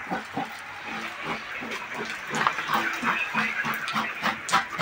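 Quick scratchy scraping strokes on the inner rubber of a truck tyre, being worked by hand around a cut. The strokes come irregularly at first, then faster at several a second from about halfway through.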